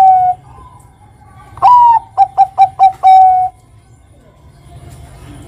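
Zebra dove (perkutut, Bangkok line) singing its cooing song. One phrase ends with a long held note, and a second and a half in comes a full phrase: a loud opening coo that bends down, four quick short coos, and a long held final note.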